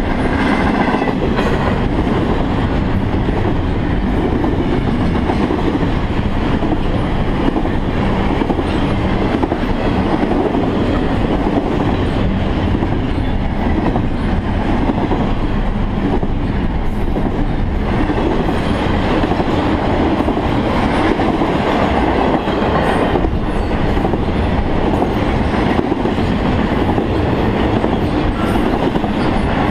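Double-stack intermodal freight cars rolling past close by: steel wheels running on the rails make a steady, loud rolling noise that does not let up.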